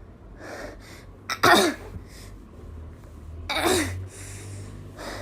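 A person's two loud, sudden explosive bursts from the throat, like violent sneezes or coughs, about two seconds apart, each with a falling cry in it, and softer breathy sounds between them.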